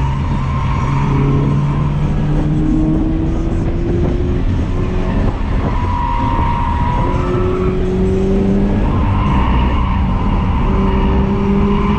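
Toyota 86's 2.0-litre flat-four engine, heard from inside the cabin while the car is driven hard on track. The engine climbs slowly in pitch three times and drops back between the climbs.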